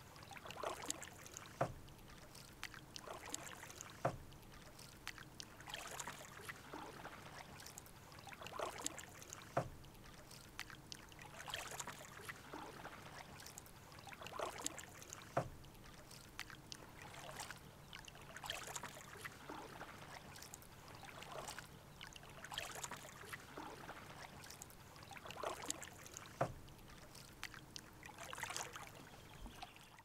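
Canoe paddle strokes, the blade swishing and splashing in calm water every couple of seconds with dripping between strokes, and a few light knocks now and then.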